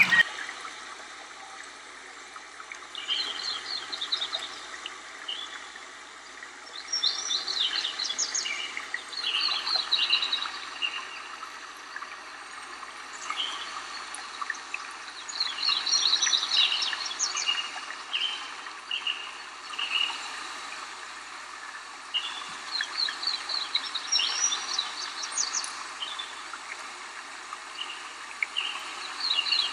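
A songbird singing short phrases of quick high notes, repeated every few seconds, over a steady hiss of flowing water.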